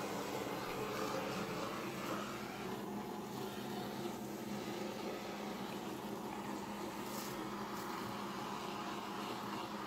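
Handheld craft heat gun running with a steady fan whir and hum as hot air is blown over wet acrylic pouring paint.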